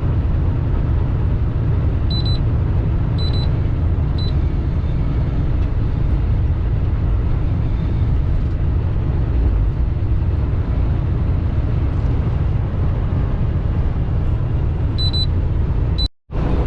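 Steady low rumble inside a semi-truck's cab at highway speed, engine and road noise together. A few short, high electronic beeps sound two to four seconds in and again near the end. The sound cuts out for a moment just before the end.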